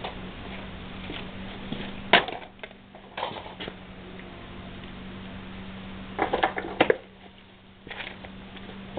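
Scattered knocks and clatter from someone moving about and handling things, over a steady low hum. There is a sharp knock about two seconds in and a quick run of knocks a little later.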